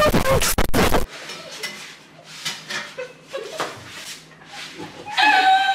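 A person's voice, not speech: a loud, distorted vocal burst in the first second, then quiet breathy sounds, and a high, wavering bleat-like cry near the end.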